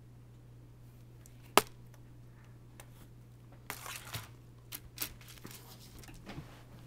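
Hands working on a laptop's plastic parts: one sharp click, then bursts of rustling, scraping and small clicks.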